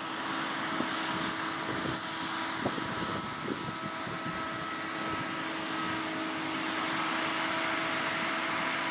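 Case combine harvester running steadily while harvesting barley: a constant machine hum with a few steady whining tones and occasional faint knocks.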